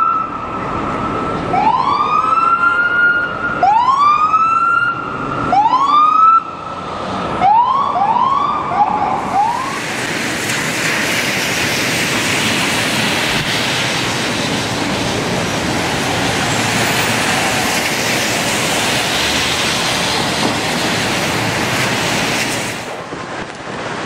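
Electronic siren of a police patrol car: a series of whoops that each rise quickly and hold a high note, about every two seconds, turning into shorter, quicker whoops before they stop. After that comes a steady rush of street noise with no siren in it.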